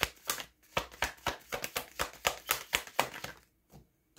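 Tarot deck being shuffled by hand: a quick run of card slaps, about five or six a second, stopping about three and a half seconds in.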